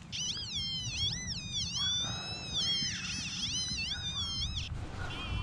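XP Deus metal detector with a high-frequency coil giving pitch-tone audio: a warbling tone that glides up and down continuously as the coil is swept over the dug hole, typical of responses to highly mineralized, 'hot' soil.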